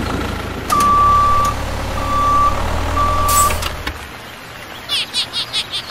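Vehicle engine running low, with three steady electronic reversing beeps over it; the engine fades out about four seconds in. A quick run of high chirpy squeaks follows near the end.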